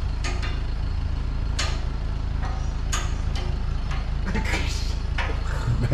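Boom truck's engine running at a steady idle, with about half a dozen sharp clicks and knocks scattered over it.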